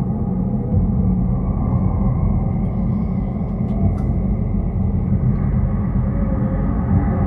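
Dark ambient noise drone: a dense, steady low rumble, heaviest in the bass, with a thinner hiss higher up and a few faint ticks about four seconds in.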